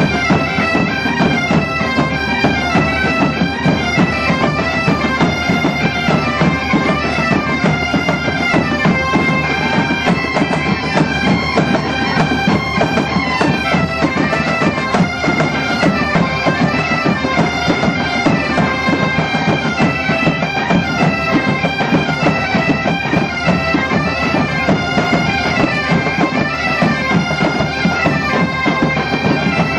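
A large band of Galician bagpipes (gaitas) playing a folk tune together, the melody moving over their steady drones, with bass drum and snare drum beating along.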